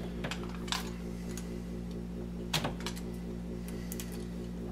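Knife ringing and shaving the insulation off copper wire ends: scattered small clicks and scrapes, over a steady low hum.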